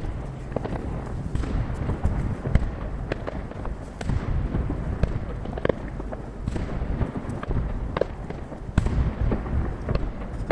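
Aerial fireworks shells bursting in quick succession: a dense, irregular run of booms and sharp cracks over a continuous rumbling echo, heard from about 800 m away. The recording is sped up to three times speed.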